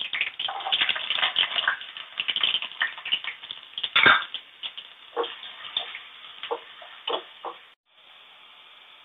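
Diced carrot frying in hot mustard oil in a small pan, sizzling and crackling densely. A sharp knock comes about four seconds in, and after that the spattering thins to scattered pops, then a faint steady hiss.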